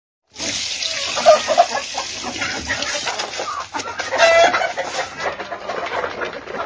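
Chickens clucking, starting abruptly a moment in, with short calls over a busy noisy background and one longer, louder rising call about four seconds in.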